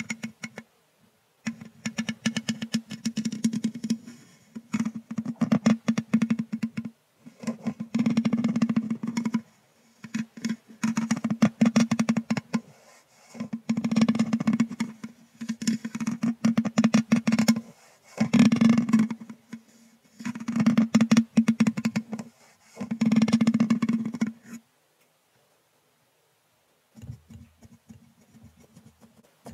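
A thin brush stroked across a microphone's metal mesh grille in repeated strokes of about two seconds each, a dense scratchy ticking as it crosses the wires, with a low resonance from the microphone body. The strokes stop about 25 seconds in; fainter, softer brushing follows near the end.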